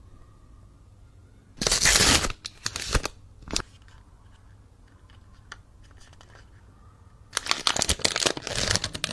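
Toy packaging being handled: a short burst of crinkling, tearing noise about one and a half seconds in, followed by a few sharp clicks. Near the end, longer crackly crinkling starts.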